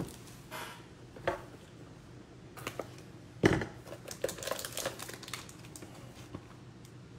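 Handling of an Upper Deck Ultimate hockey card box as it is opened and its foil pack pulled out: scattered light taps, cardboard scrapes and crinkles of foil, with one louder knock about three and a half seconds in.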